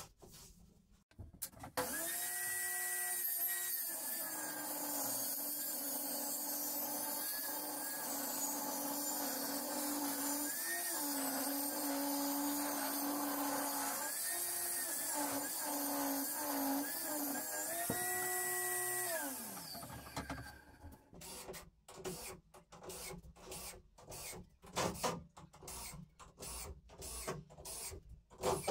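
Benchtop table saw starting up with a whine, running and cutting a wooden board, its note changing a few times, then winding down after about twenty seconds. After that come a string of short clicks and knocks.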